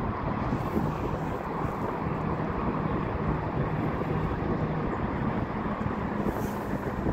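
CN GP38-2W and GP38-2 diesel locomotives running steadily at low speed, a constant engine drone with a low hum.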